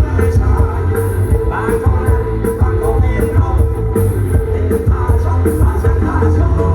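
A band playing rock music with a steady beat and a heavy bass line.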